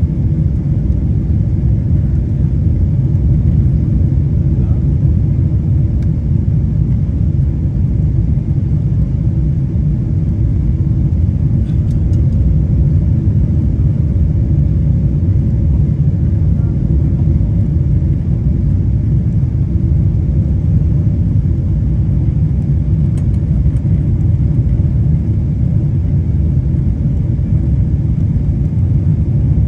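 Steady low rumble of a Boeing 777's engines and rushing air, heard inside the passenger cabin on final approach with the flaps extended.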